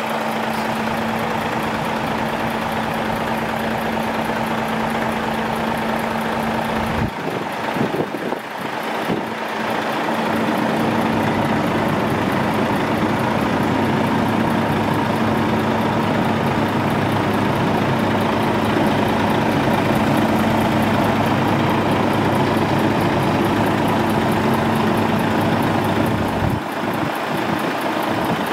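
Volvo FH460 truck's 13-litre six-cylinder diesel idling with a steady hum, disturbed for a few seconds about a quarter of the way in.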